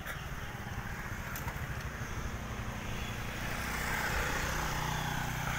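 Small motorcycle engine running steadily, with wind and road noise from riding along a paved lane; it grows louder around four seconds in.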